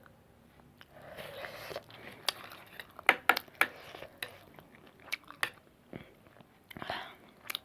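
Close-miked mouth sounds of someone eating noodles: two longer slurps, one about a second in and one near the end, with wet smacking and clicking chews between them.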